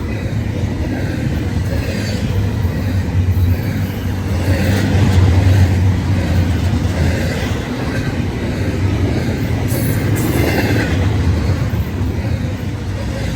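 Intermodal freight train rolling past, a steady low rumble of steel wheels on rail.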